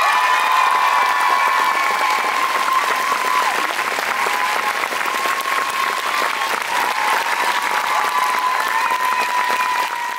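Theatre audience applauding steadily, with one long high cheer held above the clapping.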